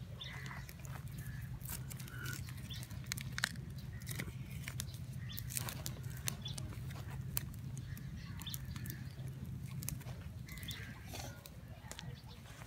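Singed feathers and skin being scraped and pulled off a fire-scorched chicken carcass by hand, giving scattered short crackles and rasps over a steady low rumble, with a few faint short chirps in the background.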